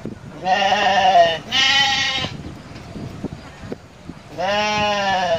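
Goat bleating three times: two wavering bleats close together about half a second in, then a third, longer one about four seconds in.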